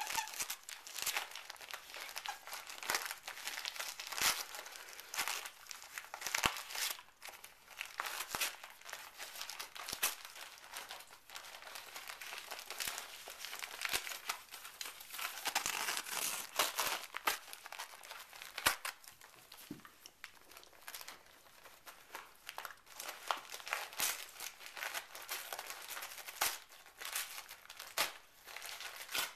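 Wrapping paper crinkling and tearing as a dachshund rips and chews at it with its teeth and paws, in irregular rustling bursts with short pauses.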